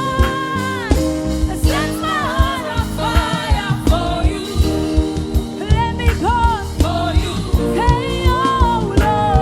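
Gospel worship music: a lead voice sings with vibrato and melodic runs over sustained instrumental chords and a steady beat.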